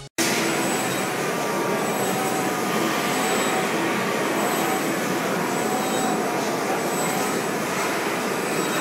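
Robot-held orbital sander running steadily against a panel: a loud, even rushing machine noise with faint whistling tones that waver in pitch.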